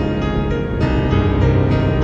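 Slow instrumental music with long held chords; the chord changes about a second in.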